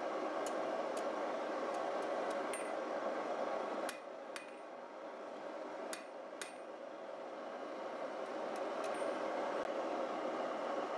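Hand hammer striking red-hot steel rod on an anvil while a rat's-tail scroll is forged: single, sharp blows, about two a second at first and sparser after about four seconds, some ringing briefly. A steady rushing noise runs behind them.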